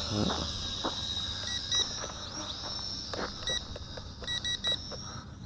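Bolon K901 toy quadcopter's small motors whining as it lifts off and flies, the pitch sliding up and down with the throttle near the start, over wind rumble on the microphone. A few short electronic beeps come in quick pairs and triples about a second and a half in and again between three and a half and five seconds.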